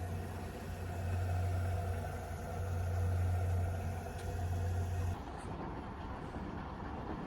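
Front-loading washing machine running on test with its newly replaced motor, drum bearing and seal, a steady low motor hum and drum noise with no knocking or grinding. The motor cuts off about five seconds in, leaving a quieter background.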